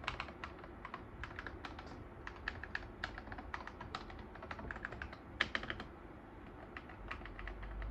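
Typing on an Akko MonsGeek Fun60 mechanical keyboard: a fast, irregular run of key clicks that thins out near the end.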